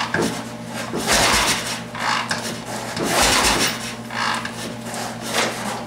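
A 750 Triumph parallel twin being turned over with its spark plug out and throttle open, in rough strokes about once a second, during a wet compression test. The reading climbs with oil in the cylinder, a sign that the piston rings are worn and not sealing to the cylinder wall.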